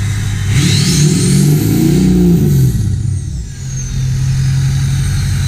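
Straight-piped 6.0 Powerstroke V8 turbodiesel in a 2005 Ford F-250, revved once. The engine note climbs and falls back to idle over about three seconds. A loud, high turbo whistle sweeps up with the rev and winds down slowly after it.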